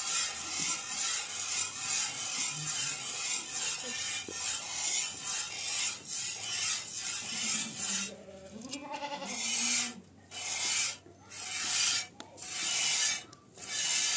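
Goat being milked by hand into a metal pot: jets of milk hiss into the milk already in the pot, fast and continuous at first, then slowing to separate squirts about once a second after about eight seconds. A goat bleats briefly around nine seconds in.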